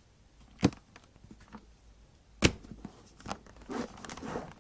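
Plastic clicks and crackles of a ThinkPad T500 laptop's casing being pried loose: a sharp snap under a second in and another about halfway, a few faint ticks, then a cluster of scraping and crackling near the end.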